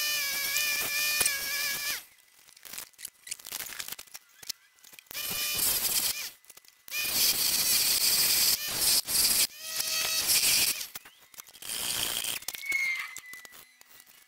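Music that cuts off about two seconds in, followed by irregular bursts of hissing, rubbing and rustling noise with scattered clicks, the longest lasting about three seconds.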